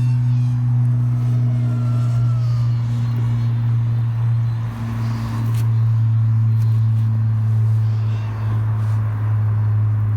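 FPV quadcopter drone's motors running with a steady low hum, dipping briefly twice as the throttle changes.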